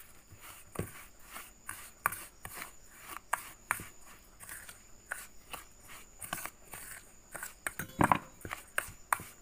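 Metal spoon scraping and clinking against a steel bowl while stirring a crumbly, moist semolina mixture, about two or three strokes a second. The loudest strokes come about eight seconds in.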